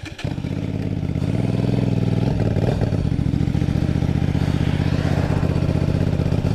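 Kasinski Mirage 250 motorcycle's V-twin engine running at a steady cruising speed, heard from the rider's position on the bike.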